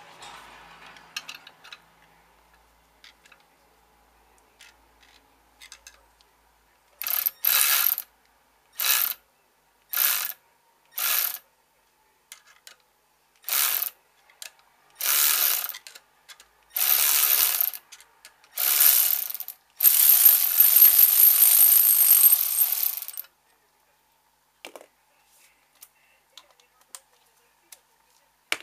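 A pressurised jet hissing in nine short blasts, the blasts growing longer, the last about three seconds. Light metallic clicks come before and after.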